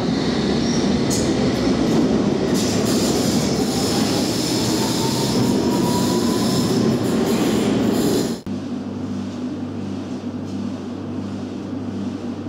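London Underground S stock train pulling out of the platform: loud wheel and running-gear rumble with a faint rising motor whine. It cuts off suddenly about eight seconds in and gives way to a steady low hum.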